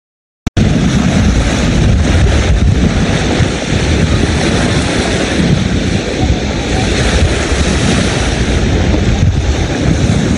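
Wind buffeting a phone microphone by the lakeshore: a loud, gusty rumbling noise that starts abruptly about half a second in.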